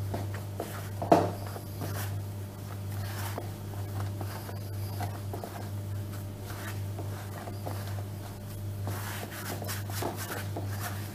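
Hands kneading soft cake dough on a counter: soft irregular rubbing and pressing sounds, with one sharp knock about a second in, over a steady low hum.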